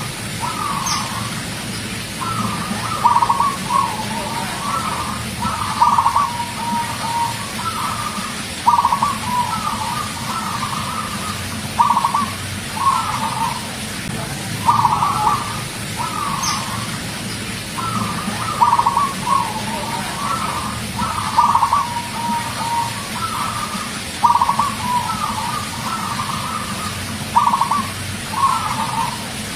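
Zebra dove (perkutut) singing: repeated phrases of quick, bubbling coos, one phrase about every three seconds.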